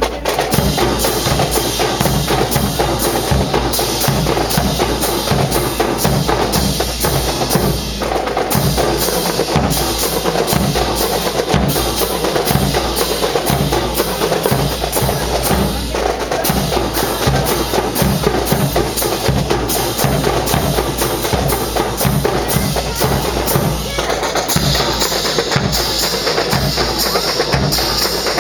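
A marching drum corps playing a steady cadence of snare and bass drums, with sharp wood-like clicks among the strokes. A bright hissing layer, like cymbals, joins about 24 seconds in.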